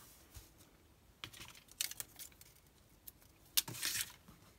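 Light clicks, taps and rustles of hands handling a ribbon bow and card stock on a craft mat, pressing the bow down onto the card. A louder, longer rustle comes near the end.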